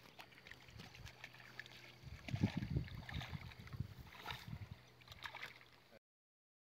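Footsteps and rustling through grass on a muddy bank, with handling noise from the phone: irregular low thumps and scuffs, heaviest a couple of seconds in. The sound cuts off about six seconds in.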